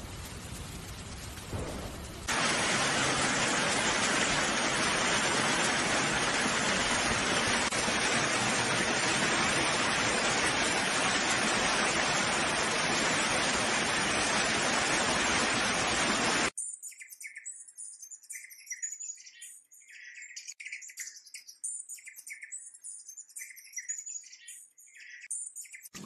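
Loud, steady hiss of water, like heavy rain or a rushing stream, that cuts off suddenly about two-thirds of the way through. It gives way to a scattered run of short, high bird chirps.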